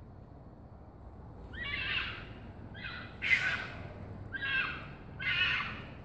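Fox calling: a run of about five harsh, raspy calls, each about half a second long, starting about a second and a half in and coming partly in close pairs.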